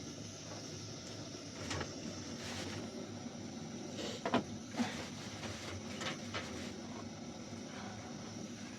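A few soft knocks and scrapes over a steady background hiss.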